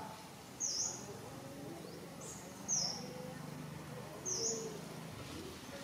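A bird's short, high chirp that dips and rises in pitch, repeated three times about every second and a half to two seconds.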